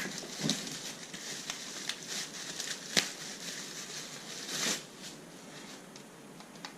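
Packaging being handled: plastic bags crinkling and box contents rustling, with scattered light clicks and taps. It grows fainter for the last couple of seconds.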